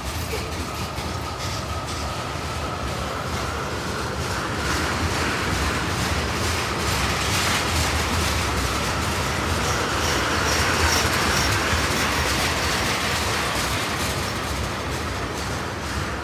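CSX freight train rolling past, its cars' wheels clicking over the rail joints in a steady rumble, with a thin wheel squeal in the first few seconds. It gets louder toward the middle and eases off near the end.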